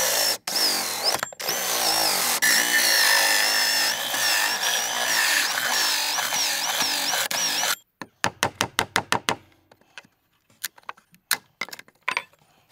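Electric drill driving a hole saw through a wooden board: a steady cutting whine that wavers in pitch, with two brief stops near the start. It cuts off suddenly about eight seconds in, followed by a quick run of sharp clicks and taps as the cut-out wooden plug is worked free of the hole, then a few scattered taps.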